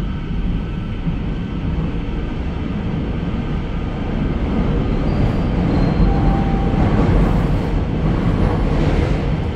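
Seoul Subway Line 9 electric train running between stations, heard from inside the carriage: a steady rumble of wheels on rail that grows louder about halfway through.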